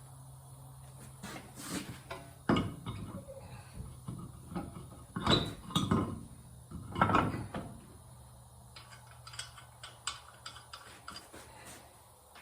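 Metal tools and parts clanking and knocking while a wheel is being put back on a car, with a few louder knocks near the middle. A steady low hum runs underneath and stops about eight seconds in.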